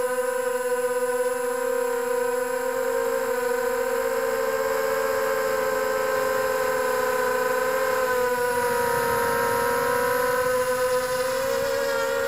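Multirotor drone's motors and propellers whining steadily in flight, the pitch dipping and rising a little as the throttle changes.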